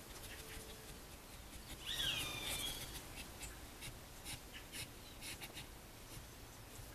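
Soft scratchy rustling and clicking in the straw bedding as a lesser anteater (tamandua) and her newborn shift in the nest, with a brief high squeak that bends downward about two seconds in.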